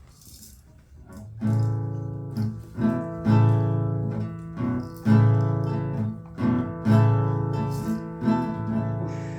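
Acoustic guitar being strummed, starting about a second and a half in: sustained chords with strong strokes every second or two.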